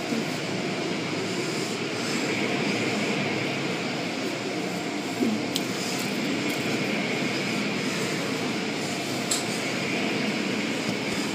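Automatic car wash heard from inside the car: cloth brushes and water spray sweeping over the body and windows, a steady rushing, swishing noise. A couple of sharp clicks come through, about five and nine seconds in.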